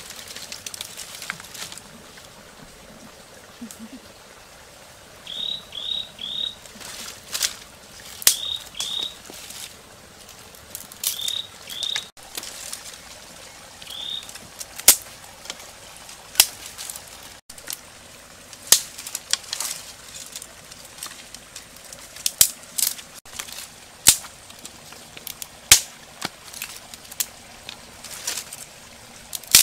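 Dry wooden sticks snapping and knocking in scattered sharp cracks. A small animal gives short high chirps in twos and threes, from about five to fourteen seconds in.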